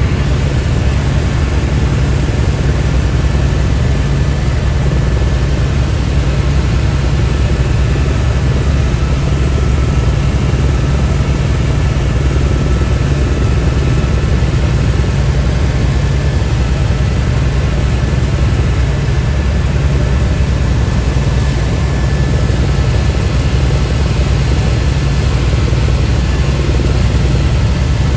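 Helicopter in flight heard from inside the cabin: a loud, steady low drone from the rotor and engine, with a faint high whine held throughout.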